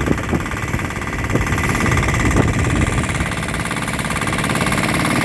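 Boat engine running steadily while under way, a continuous even hum with a few faint knocks in the first couple of seconds.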